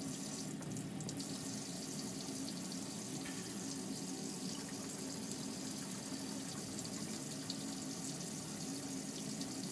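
Faucet running hot water continuously into a camper's sink, a steady, unbroken rushing flow with a low hum underneath. The water is being drawn nonstop from an Alde hot water system to test how long it stays hot.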